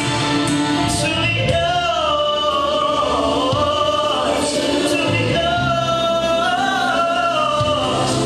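A man sings a slow R&B ballad into a microphone over music, with long held notes that bend up and down.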